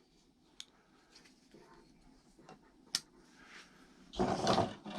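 Folding knives being handled: a faint click, then a sharp click near the middle, and a louder brief scraping handling noise near the end.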